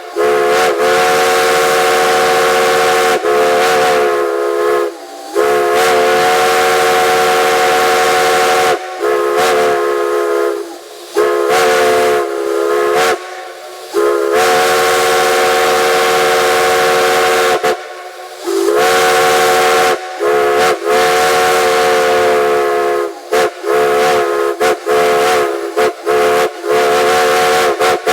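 Steam locomotive chime whistle blown in a series of blasts, several notes sounding together over a hiss of steam. Long blasts of a few seconds each, some sliding up in pitch as they open, give way to a run of quick short toots near the end.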